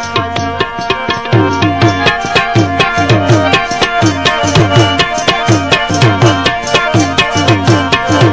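Instrumental break in a song: hand drums in the tabla family play a fast, steady rhythm, their bass strokes bending down in pitch, over steady held tones from a melodic instrument.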